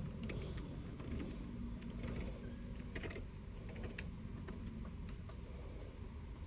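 Faint, scattered small clicks and taps from hands working a shift knob as it is screwed onto the gear shifter, over a low steady hum.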